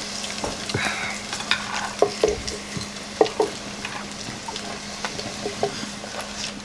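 Forks scraping and tapping on earthenware plates as a family eats, with a few short clinks, over a faint steady low hum.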